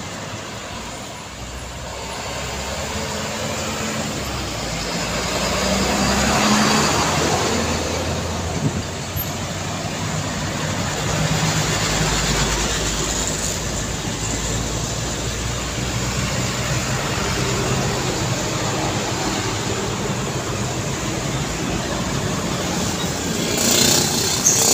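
Street traffic passing close by: a loaded light diesel truck, cars and motor scooters with engine hum and tyre noise that swell and fade as each goes by. A brief hiss comes near the end as a group of scooters passes.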